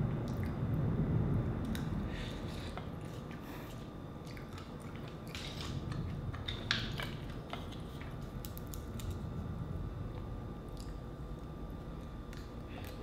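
Close-up chewing of steamed mussels, with scattered light clicks of mussel shells knocking against each other and the plate, the sharpest about seven seconds in.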